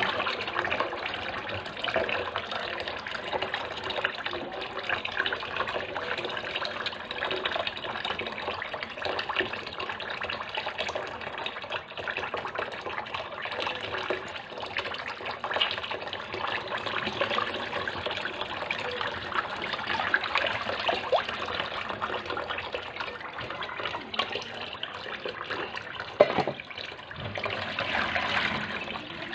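Tap water running into a basin in a sink while hands wash fish and squid in it, with steady splashing and sloshing. A single sharp knock comes near the end.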